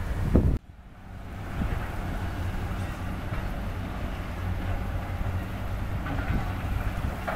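Hydraulic excavator diesel engines running steadily. The sound drops out abruptly about half a second in and builds back over the next second.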